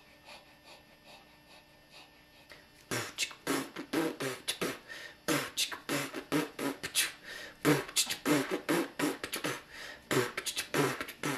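Beatboxing: a human voice making quick, rhythmic drum-like clicks, snaps and thumps. It starts about three seconds in, after a near-quiet stretch.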